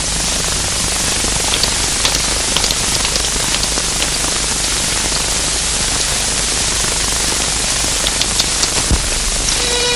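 Steady hiss with scattered faint crackles and a low hum, the surface noise of an old optical film soundtrack with no dialogue on it. Near the end a sustained violin note begins.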